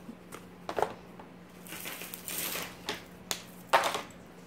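Handling of costume jewelry and its packaging on a tabletop: several sharp clicks and knocks as a small earring box is set down and pieces are picked up, the loudest near the end, with a crinkling rustle of the bag about two seconds in.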